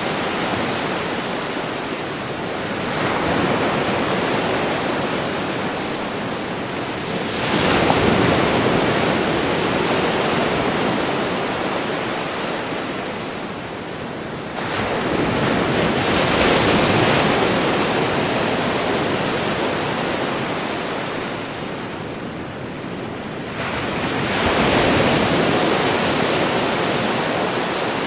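Sea waves surging in and washing back, four swells that rise and fade over several seconds each.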